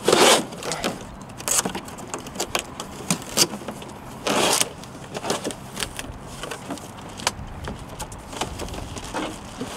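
A large cardboard box being handled and opened on a pickup's tailgate: rustling and rubbing of cardboard with scattered light knocks, and two louder noisy bursts, one at the start and one about four seconds in.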